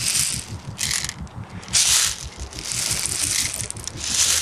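6 mm plastic BBs rattling as they are poured into the top opening of an airsoft gun's high-capacity magazine, coming in several short bursts.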